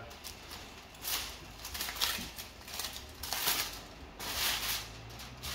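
Aluminium foil crinkling and rustling in several short bursts as a foil-covered roasting tray is handled, over a faint low steady hum.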